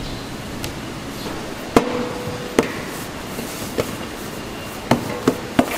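Several sharp metallic knocks of a large stainless steel basin being handled as dough is coiled into it, the first one ringing briefly, over a steady background noise.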